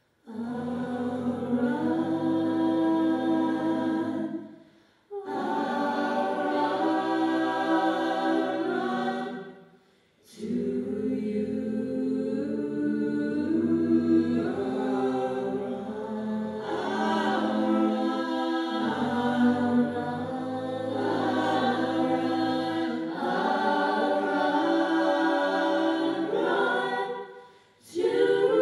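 Mixed-voice vocal jazz ensemble singing a cappella into microphones, in sustained close-harmony chords. The chords come in long phrases, broken by short pauses about five seconds in, about ten seconds in and near the end.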